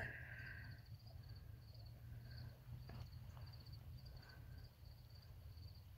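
Faint chirping of crickets, short high trills repeating steadily, over a low steady rumble.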